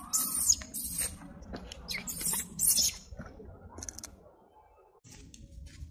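Baby macaque sucking milk from a bottle nipple, making a few short, high-pitched sucking noises in the first three seconds, then going quieter.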